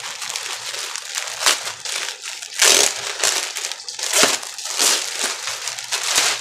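Clear plastic packaging bag crinkling and crackling as it is handled and opened around a folded garment, with irregular louder bursts.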